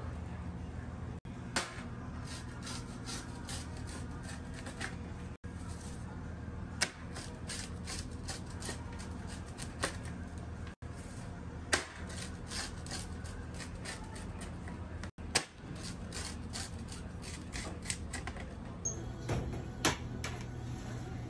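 Pizza wheel cutter crunching through crust and clicking and scraping on a metal pizza tray: many sharp clicks and scrapes over a steady low hum.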